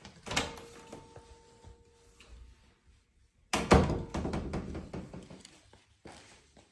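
Louvered closet door worked by its lever handle: a thunk near the start, then a loud clunk about three and a half seconds in, followed by a second or two of rattling clicks as the slatted door moves.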